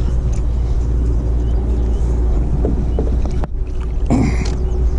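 Small fishing boat's motor running steadily, heard from aboard as a low hum with a faint, even whine. A brief clatter comes about four seconds in.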